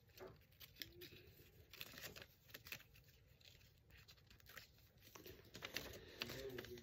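Faint snips of scissors cutting through paper, with the sheet rustling between cuts.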